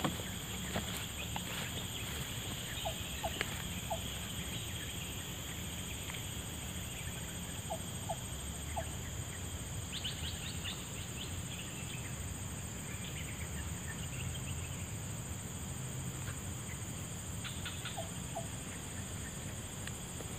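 Forest ambience: a steady high-pitched insect drone, with a few short chirps and small clicks scattered through it.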